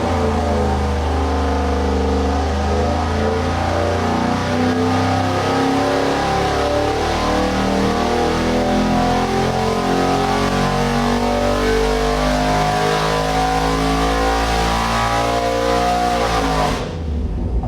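Magnuson-supercharged engine making a full-throttle dyno pull, its pitch climbing steadily for about sixteen seconds before it drops off abruptly near the end as the run finishes.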